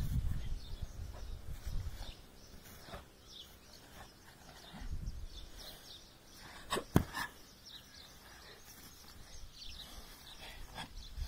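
Quiet outdoor ambience with faint scattered bird chirps and a low wind rumble on the microphone that dies away in the first two seconds. About seven seconds in comes a single sharp snap from the karate kata's movement, with a smaller one just after.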